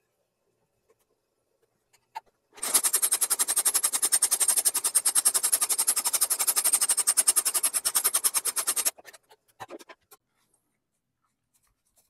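Shoe-repair sole-stitching machine running and stitching a leather midsole onto a boot: a fast, even run of mechanical strokes with a high whine over it, lasting about six seconds and stopping suddenly. A few light clicks follow.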